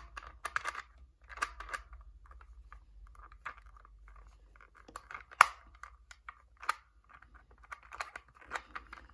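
Sengso magnetic clock puzzle being worked by hand: its dials are turned and snap between magnetic positions, and its pins are pushed. It makes a scatter of small plastic clicks and rattles, with one sharper click about five and a half seconds in.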